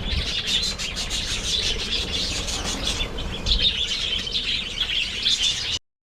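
A flock of budgerigars chattering, with many quick overlapping chirps and warbles. It cuts off abruptly near the end.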